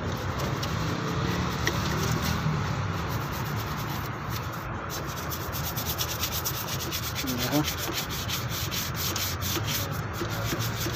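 Stiff hand brush scrubbing caked dirt and mud off a car's steel underbody frame in quick, continuous back-and-forth strokes.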